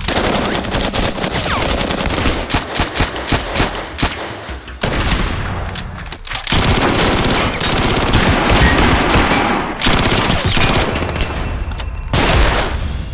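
Dense, rapid gunfire sound effects, the shots overlapping almost without a break, with short lulls about five and six and a half seconds in.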